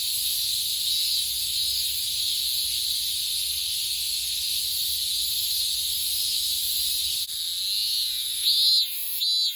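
Cicadas singing in a dense, steady sizzling drone. It changes abruptly about seven seconds in, and two short, louder, pulsing calls come near the end.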